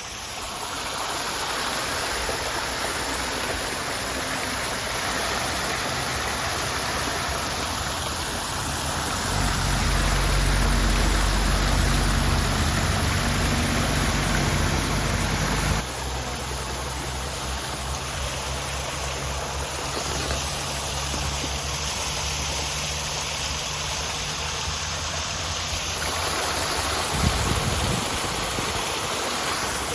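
Garden fountain water splashing in a steady rush. A motor vehicle's engine runs underneath from about a third of the way in, loudest for several seconds, then drops suddenly and carries on more faintly until near the end.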